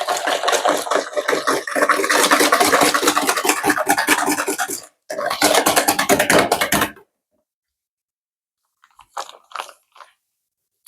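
A whisk beating eggs, sugar and melted margarine in a bowl, rapid strokes clattering against the bowl. It pauses briefly about five seconds in, resumes, then stops about seven seconds in, with a few faint short sounds near the end.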